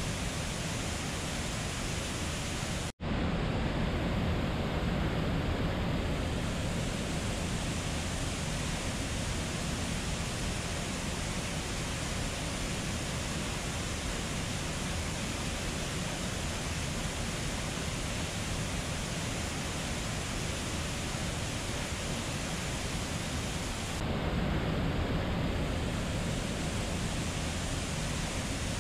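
Steady rushing of a waterfall and river water, with a momentary dropout about three seconds in.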